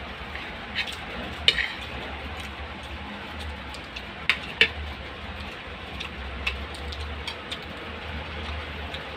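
Close-up eating sounds of a man eating fish and rice with his hands: scattered sharp clicks and smacks, the loudest about one and a half and four and a half seconds in. Under them runs the steady low hum of an electric fan.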